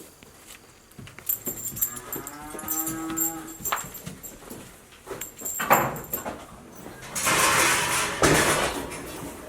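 A cow mooing once, a single call of about two seconds starting about two seconds in. Louder shuffling noise follows in the last few seconds.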